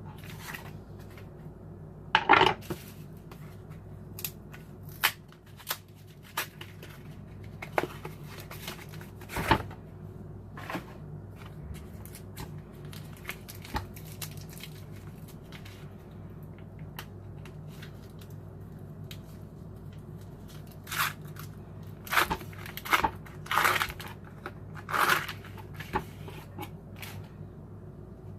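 Kitchen handling sounds as cream cheese is cut and packed into a container: scattered taps, clicks and rustles with a few louder knocks, over a steady low hum.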